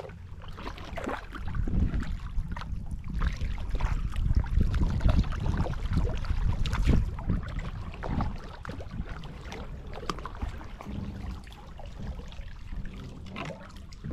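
Kayak paddle strokes dipping and splashing, with water moving along a plastic sit-on-top hull. A low rumble runs underneath and is heaviest in the first half.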